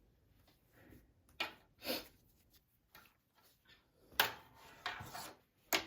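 A few scattered knocks, clicks and short rustles, the sounds of fabric and parts being handled at a sewing machine while it is set up for stitching. The loudest knock comes a little after four seconds in, and a sharp click comes near the end.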